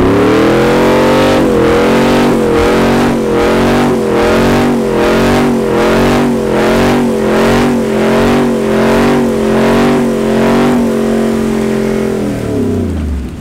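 Pickup truck engine revved hard through a burnout while the rear tyres spin on the pavement. The revs climb fast at the start and are then held high, the pitch dipping and recovering about twice a second, before falling away near the end.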